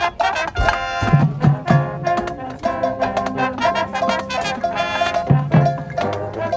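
High school marching band playing, with brass holding chords and percussion keeping the beat.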